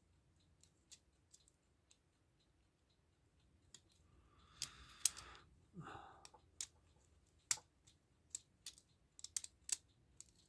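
Scattered small clicks and taps of metal clock parts and tweezers being handled while a mechanical clock movement is put back together, with a short rustling noise a little before the middle.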